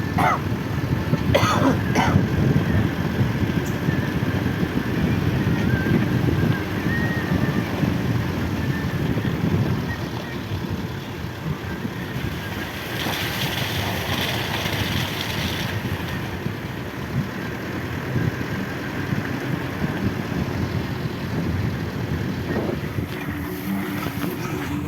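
Off-road vehicle engine running under load, with wind buffeting the microphone. It is louder for the first ten seconds or so, then eases off.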